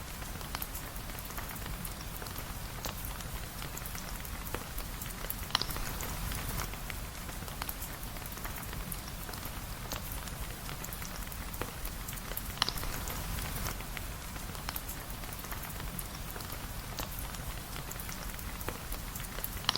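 Steady rain falling on surfaces, a dense patter of fine ticks over a low rumble, with a couple of sharper single pops about five and twelve seconds in.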